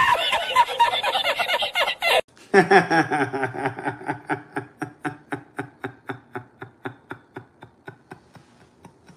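Two men laughing, one after the other. First a hard, high-pitched cackling laugh that cuts off abruptly about two seconds in, then another man laughing in a long run of short, rhythmic "ha" pulses, about four a second, that fades toward the end.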